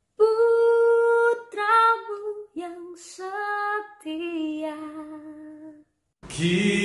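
A woman singing a slow melody solo and unaccompanied, holding long notes with vibrato. Near the end a man's voice takes over, singing lower.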